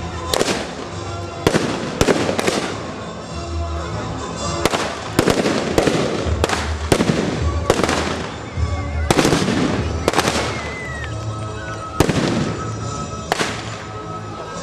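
Scattered blank rifle shots in a battle reenactment skirmish, over background music. There are about a dozen sharp reports at irregular intervals, each with a short echoing tail.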